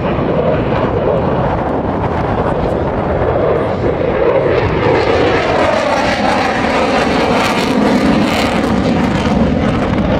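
F-16 fighter jet's single turbofan engine running loud during a demonstration pass, a steady rushing roar whose pitch sweeps downward in the second half as the jet moves past.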